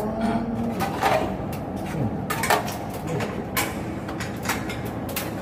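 Scattered knocks and clanks from hands-on installation work on a blower exhaust fan motor, about seven separate hits over a few seconds, with faint bits of voices underneath.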